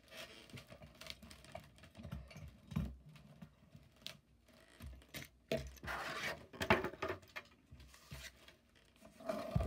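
Irregular light clicks and taps of small die-cast metal toy cars and a toy car-carrier truck being handled and set down on a hard tabletop, mixed with rustling of cardboard and plastic packaging.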